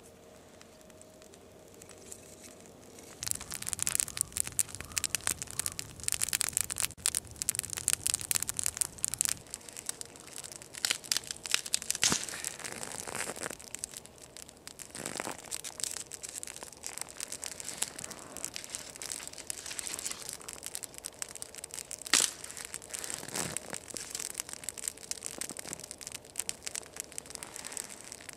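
Dry twigs crackling and snapping as a small stick fire catches and sticks are handled and fed onto it. The dense crackling starts about three seconds in, with a few sharper cracks.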